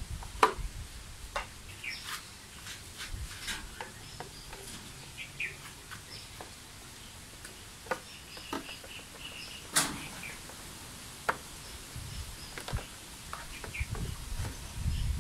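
Scattered clicks and taps as a screwdriver works at a Honda Dio scooter's plastic speedometer housing and panels, the sharpest about half a second in and near ten seconds. Birds chirp in the background.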